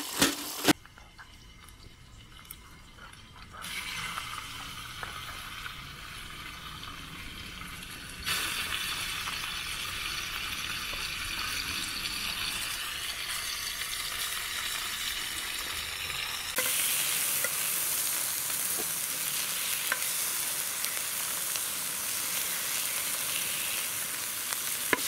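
Sliced pork sizzling in a ridged grill pan over a wood fire, a steady frying hiss. It starts quietly and gets louder in steps a few seconds in, about a third of the way through and again past halfway.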